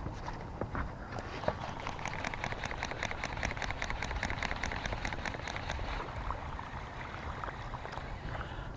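A fast, even ticking, about seven clicks a second, starting about a second and a half in and stopping about six seconds in, over a steady low rumble.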